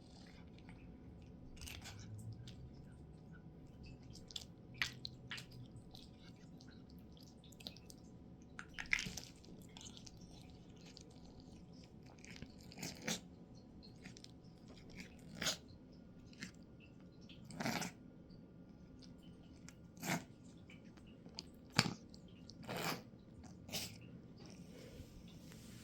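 A series of short, sharp sneezes at irregular intervals a few seconds apart, a few of them louder than the rest.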